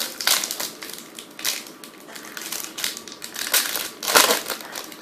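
Foil trading-card pack wrapper crinkling and crackling in the hands, in uneven bursts, with the loudest crumple about four seconds in.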